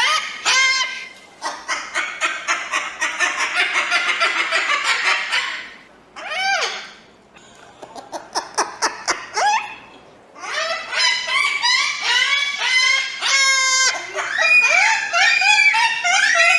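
Crested cockatoo calling: a long run of rapid short squawks, then single harsh squawks that bend in pitch, a quick burst of clicking calls, and a dense stretch of squawking near the end.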